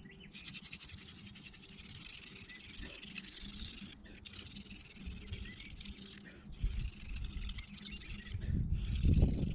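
Hand drill friction fire: an elder spindle spun between the palms and grinding into an ivy hearth board, a fine, steady rasping hiss broken by brief pauses about every two seconds.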